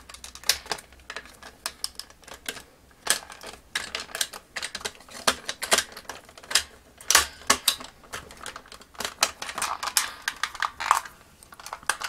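Hard plastic parts of a vintage Kenner M.A.S.K. Switchblade toy clicking and knocking together as the top section is pressed down and clipped onto the body: an irregular run of sharp taps and clicks, several a second.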